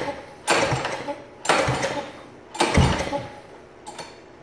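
Small vertical-shaft lawnmower engine being pull-started by its recoil starter. It cranks over in three rattling pulls about a second apart, with a weaker one near the end, and never fires: water has got into the carburetor and cylinder.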